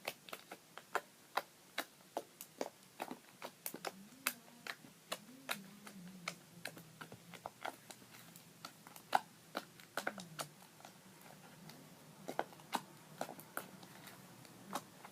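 Slime being poked and squeezed by hand, giving off irregular sharp clicks and pops, several a second.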